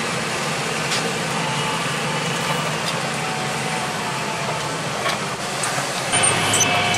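New Holland T7.245 tractor running steadily on the road, heard from inside its cab, with a few light ticks. Near the end an oncoming tractor and spreader pass close alongside, adding a second engine note and making it a little louder.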